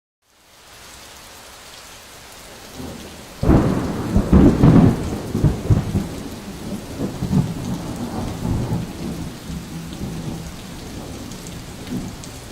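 Storm noise: a steady hiss of rain and sleet, then a sudden low rumble about three and a half seconds in that rolls on and slowly dies away over the following seconds.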